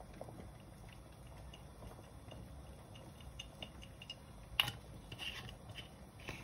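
Quiet kitchen room tone with faint small taps and clicks of items being handled at the counter, and one sharper click a little past halfway.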